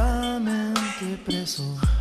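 Music: held notes over deep kick-drum hits and cymbal strokes.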